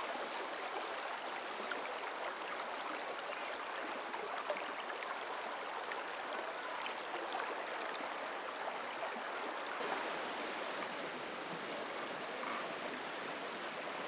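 Shallow river running steadily over stones and pebbles.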